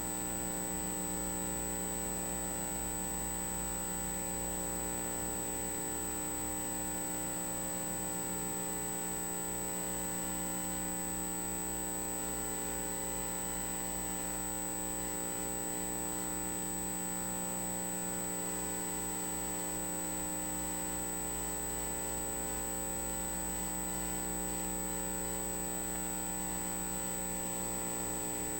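Steady electrical hum with several constant tones and a thin high-pitched whine, unchanging throughout.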